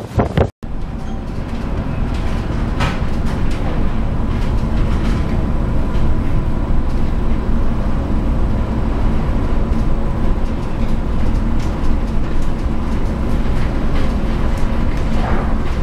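Steady low rumble aboard a container ship in a storm, with wind and sea noise and a faint steady machinery hum. There are brief louder rushes about three seconds in and again near the end.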